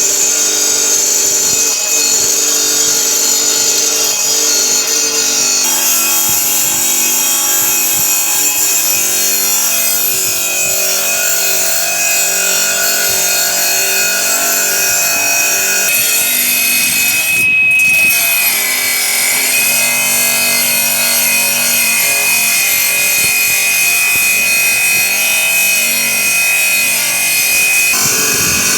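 Rubi DR350 saw running and cutting through high-alumina brick, a steady high whine with a brief break and slight dip in pitch about two-thirds of the way through.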